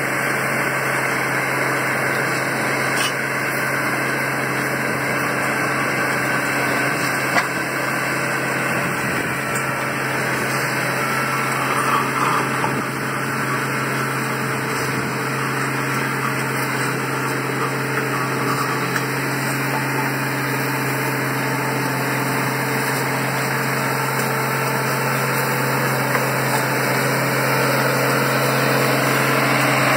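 Engine of construction machinery running steadily with a constant low hum.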